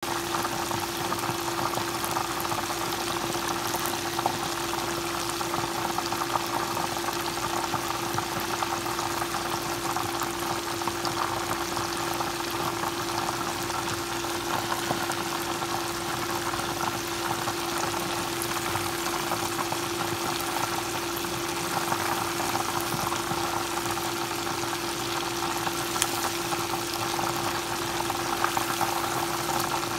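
Chicken pieces deep-frying in hot oil for karaage: a steady, dense sizzle and bubbling with scattered sharp crackles, over a steady low hum.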